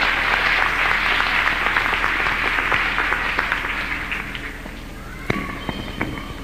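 Audience applauding. The clapping is dense at first and dies away about four to five seconds in, leaving a few last scattered claps near the end.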